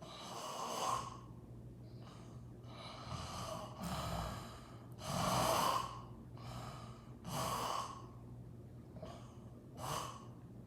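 A sleeping woman snoring: noisy breaths come about every two seconds, five louder ones in all, the loudest about halfway through.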